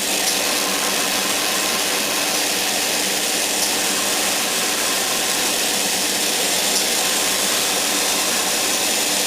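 Airbrush spraying paint: a steady hiss of compressed air from the compressor, its pressure turned down for small detail work, over the hum of a spray booth's extractor fan.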